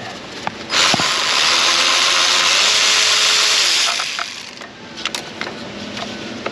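Power ratchet on a long extension spinning out an ignition-coil Torx bolt: one steady, hissing run of about three seconds that starts and stops sharply, followed by a few light clicks of the tool and socket.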